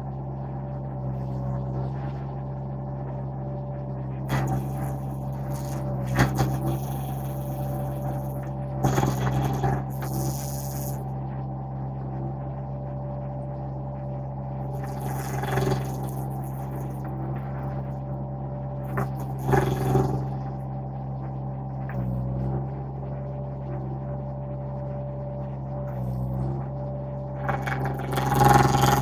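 Mini skid steer engine running at a steady speed, driving a stump grinder attachment, with short bursts of grinding noise as the cutter bites into the stump several times, the loudest near the end.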